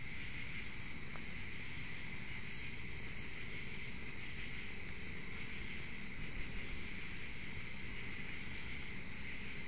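Steady chorus of night insects: a continuous high-pitched drone over low background noise.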